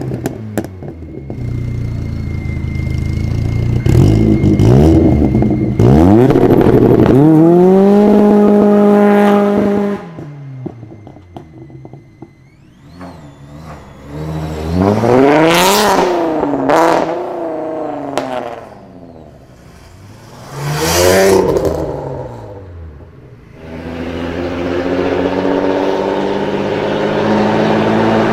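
Volkswagen Golf engines and exhausts revving and accelerating. A few rev blips come first, then a rev held high for about two seconds that drops away. After a quieter stretch come two sharp swells that rise and fall, and a steady engine note runs through the last few seconds.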